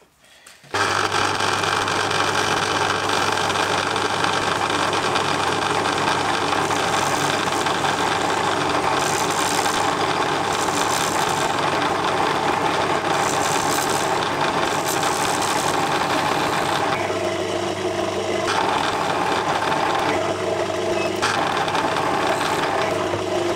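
Metal-turning lathe starting up about a second in and running steadily, its motor humming, while a cutting tool turns down a brass bar held in a four-jaw chuck.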